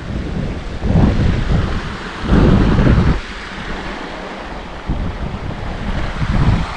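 Wind buffeting the microphone in heavy low gusts about a second in, around the middle and near the end. Under it runs the steady rush of a shallow mountain creek.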